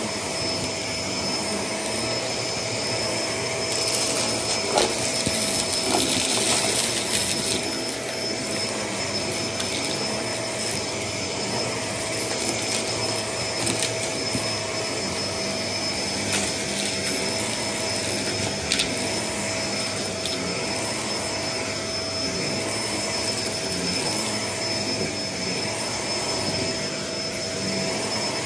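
Bagless upright vacuum cleaner running steadily over a thick shag rug, a constant motor whine with a high steady tone above it. A burst of crackling rattle comes about four to seven seconds in, with a few single clicks later, as scattered debris is sucked up into the clear dust cup.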